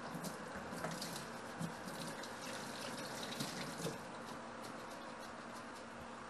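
Water from a kitchen tap running into a stainless-steel sink and splashing over gloved hands rinsing under it, with a few light knocks. The flow weakens about two-thirds of the way through.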